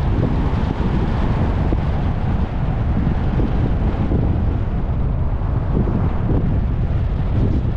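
Wind buffeting the microphone of a hood-mounted camera on a moving car: a loud, steady low rumble mixed with road noise.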